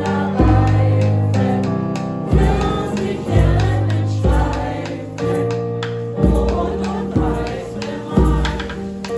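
Music with voices singing together over a heavy bass line, the bass notes struck roughly once a second.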